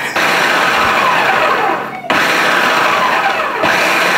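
Food processor motor running, whirring the flour and salt together in the bowl. It stops for a moment about two seconds in, then starts again.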